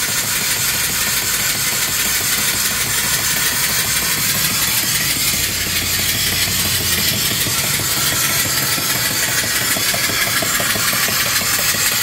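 Small mill steam engine (3-inch bore, 4-inch stroke) running steadily on steam at about 200 RPM and belt-driving an alternator, with a loud steady hiss of escaping steam over a fast, even beat.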